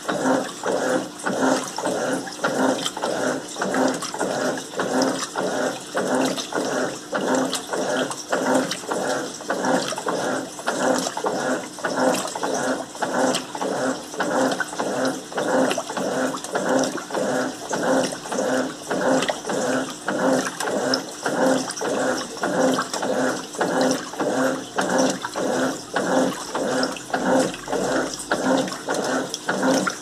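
Electrolux LM08 top-loading washing machine agitating a load of rugs at maximum water level with the turbo setting on: the agitator churns the water back and forth in a steady rhythm of about two strokes a second.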